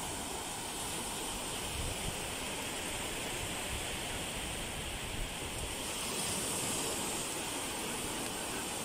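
Small surf breaking and washing up a shallow sandy beach: a steady hiss that swells slightly about two-thirds of the way through, with wind rumbling on the microphone.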